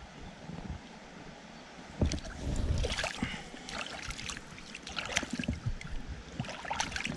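Water splashing and sloshing in a shallow creek, in irregular bursts that start about two seconds in.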